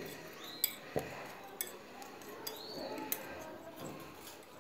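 Metal spatula clicking and scraping against a small glass mixing slab while working dental powder, with a few sharp light clicks over quieter scraping.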